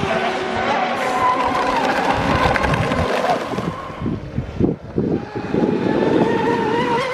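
Radio-controlled speedboat running flat out across the water, its motor giving a high whine that rises and falls in pitch as it passes, with the hiss of spray. The whine drops away briefly around four seconds in, then climbs again.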